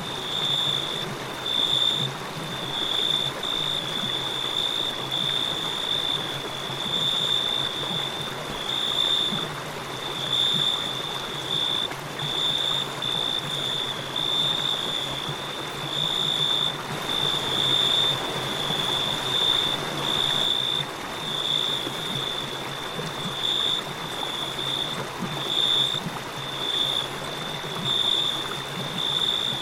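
Crickets chirping in a high, pulsing trill that swells about once a second, over the steady rush of a flowing river.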